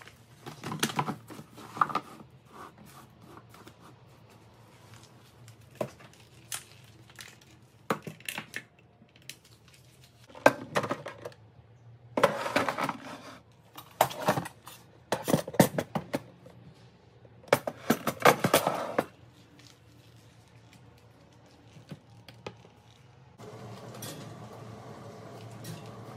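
Kitchen storage being handled: cabinet doors on metal hinges opening and closing, and objects clinking and knocking as they are put into the cupboards and a chrome wire pull-out basket, in scattered clusters of clatter with quiet gaps. A low steady hum comes in near the end.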